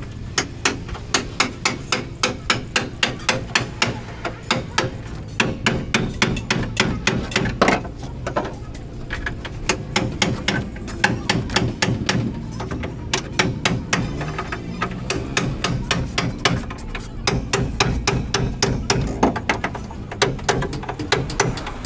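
Repeated hammer blows, steady at about three a second at first, then quicker and more irregular.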